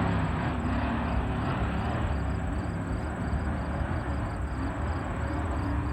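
Racing hydroplane boats' engines droning steadily at a distance, the sound easing off slightly at first as a boat moves away.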